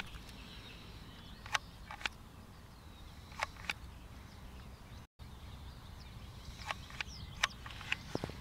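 Quiet outdoor ambience: a low steady rumble with faint bird chirps, broken by about nine irregular sharp clicks or taps, and a split-second dropout about five seconds in.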